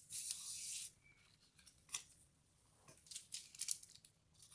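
Paper and card being handled on a tabletop: a short sliding rustle at the start, then scattered light clicks and rustles as a white die-cut paper flower is picked up.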